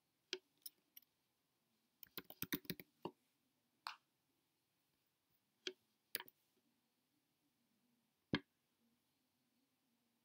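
Faint computer keyboard typing and mouse clicks. A few single clicks, then a quick run of about eight key presses around two seconds in as a short word is typed, then more single clicks spaced a second or two apart, the sharpest one near the end.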